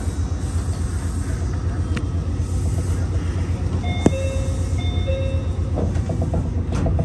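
Meitetsu commuter train standing at a station platform with a steady low equipment hum. About four seconds in there is a sharp click, then two short electronic two-note chimes about a second apart. Near the end a fast buzzing of about ten pulses a second starts up.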